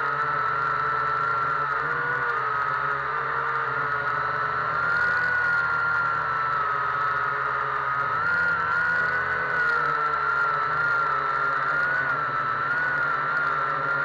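Quadcopter's electric motors and propellers running in flight, heard close up from on board: a steady whine whose pitch wavers slightly up and down.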